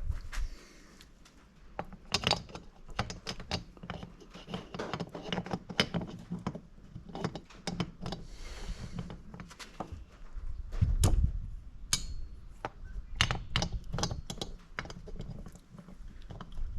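Irregular clicks, clinks and knocks of hand tools and metal engine parts being handled during reassembly of a Yamaha Warrior 350 engine, with heavier knocks about eleven and twelve seconds in.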